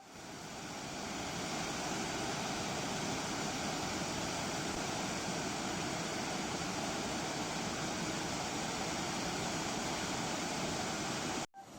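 Steady rush of falling water from Elk Falls, a waterfall, swelling up over the first second or two and then holding even until it cuts off suddenly just before the end.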